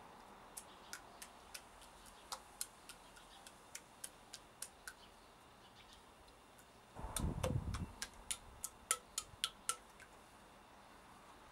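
Water dripping into a tray of water in irregular single plinks. About seven seconds in comes a brief splash as wet grass pulp is poured into the paper mould, followed by a quicker run of drips.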